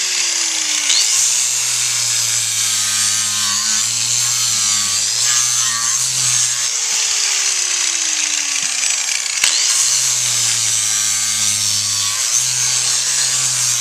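Electric power grinder rasping down a horse's hoof wall, shortening the overlong toe of a front hoof. The grinding runs steadily, and the motor's pitch twice sags slowly and then climbs back.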